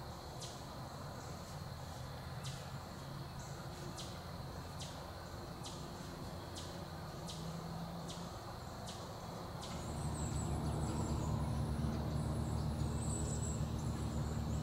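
Insects calling in the woods: a steady high trill with sharp chirps repeating about twice a second. About ten seconds in, the chirps stop and a low steady hum comes in under fainter high chirping.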